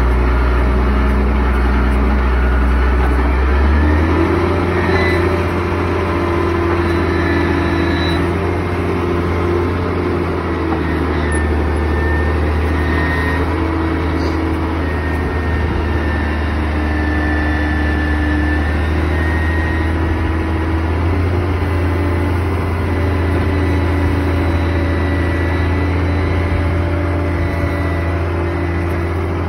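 Komatsu GD555 motor grader's diesel engine running steadily. About four seconds in it picks up speed and holds there while the blade is hydraulically raised and tilted up to the side into bank-cutting position.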